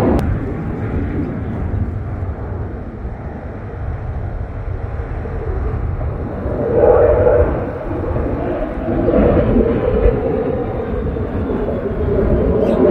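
Fighter jet's engines, a steady loud rumble as the jet flies past on landing approach with its gear down, swelling about seven seconds in and again near the end.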